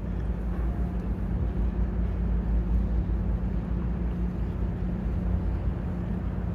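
Sightseeing cruise boat's engine running, a steady low drone with a hum, under water and wind noise.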